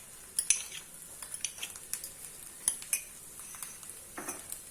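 A metal spoon clinking and tapping against a pan and a ghee container, a dozen or so scattered light clinks.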